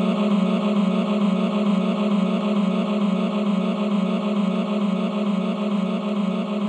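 Instrumental outro of a rap beat: sustained synth chords with no drums or bass, slowly fading.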